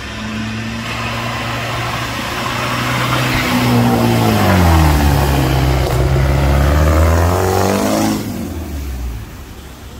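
Lifted off-road 4x4 driving through a flooded ford: its engine and the splashing water grow louder as it approaches, loudest as it passes close by, with the engine pitch falling as it goes past. The sound drops away sharply about eight seconds in.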